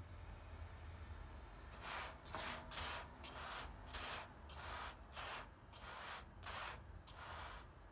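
A wooden spatula rubs and scrapes across a granite-coated pan as it pushes a bazlama flatbread around. The scraping comes in quick, even strokes of about two to three a second, starting about two seconds in.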